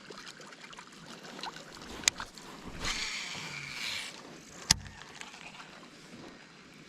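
Fishing tackle handled on a kayak: a sharp click, then about a second of high whirring hiss like line running off a reel, then a single sharp knock, the loudest sound.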